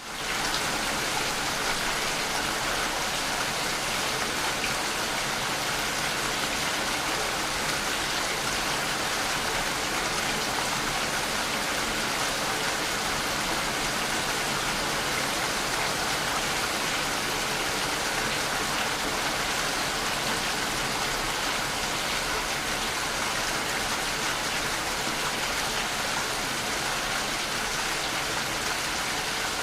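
Rain falling steadily: a dense, even hiss of countless drops, with no single drop standing out. It fades in over the first half-second, then holds level.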